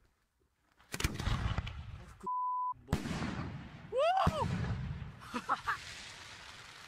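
Aerial firework shells going off: a loud bang about a second in with a long rumbling echo, then a second bang about four seconds in as a shell bursts overhead, with a short rising-and-falling shout, before the rumble fades. A brief steady beep cuts in between the two and blanks out all other sound.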